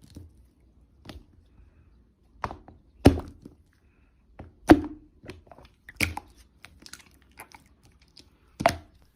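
Slime being squeezed and poked by hand: scattered sticky pops and clicks, a few sharper pops every second or two with softer ones between.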